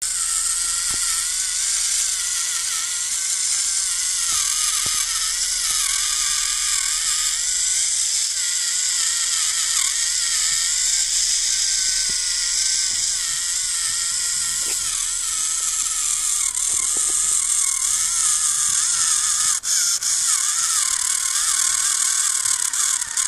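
Small electric motor and gearbox of a homemade RC tractor whining, its pitch wavering up and down as it strains with the tractor and its trolley stuck in soil.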